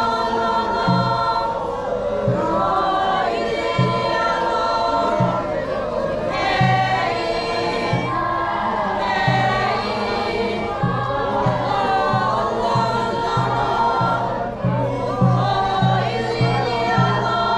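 A group of Naga tribal performers singing together in chorus, over a steady low beat that quickens near the end.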